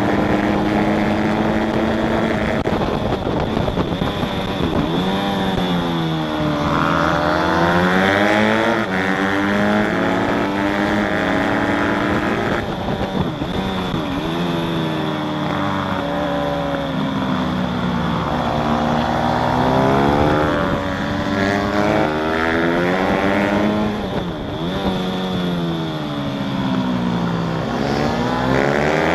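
Motorcycle engine at speed, heard from on board, its revs climbing as it accelerates and dropping away as it slows, several times over.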